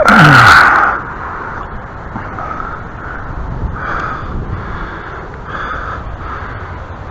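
A loud, brief noise with a falling tone in the first second, followed by about six short, harsh bird calls spread over the next few seconds.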